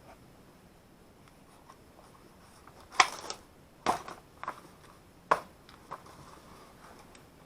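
Handling noises as papers and small parts are moved about: about five short, sharp knocks and rustles spaced roughly a second apart, starting about three seconds in.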